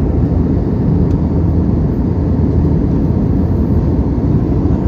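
Steady, loud, low rushing noise of an aircraft in flight, even throughout with no distinct tones or breaks.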